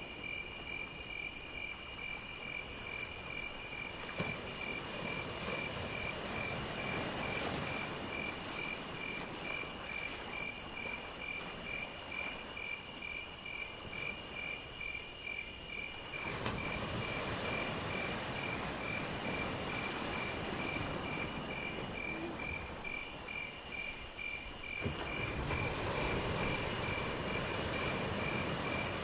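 Insects chirping, crickets among them: a fast, even chirp repeated steadily, over a higher buzz that starts and stops every second or so. Under them runs a steady rush that grows louder about halfway through and again near the end.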